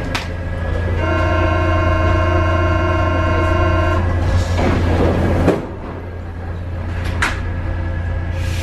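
A Paris Métro MF 67 train's door-closing warning buzzer sounds steadily for about three seconds, over the train's low hum at standstill. A rushing hiss follows as the doors shut, and a sharp click comes a little later.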